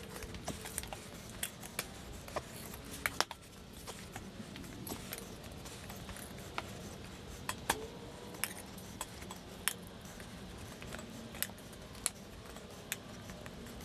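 Metal tire irons clinking against a dirt bike's spoked rim and against each other as the tyre is levered over the rim: scattered, irregular sharp clinks.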